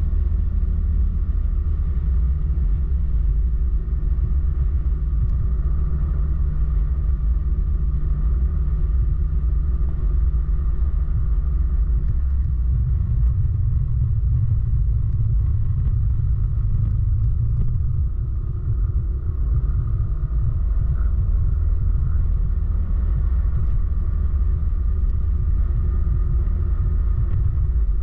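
Onboard riding noise from a motorcycle cruising at a steady speed: a constant low rumble of wind and engine.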